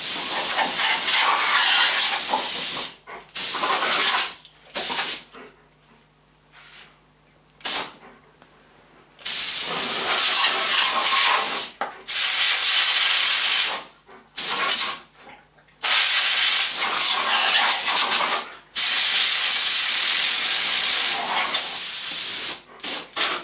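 Compressed-air blow gun on a coiled shop air hose hissing in a series of blasts, several lasting two to three seconds and others only short puffs, with a longer pause about six to nine seconds in.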